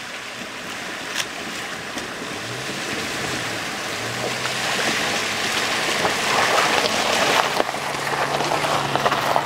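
Jeep Grand Cherokee fording a shallow, rocky river: water splashing and rushing around its wheels, growing louder as it comes close and passes, with the low, steady note of its engine under the splashing.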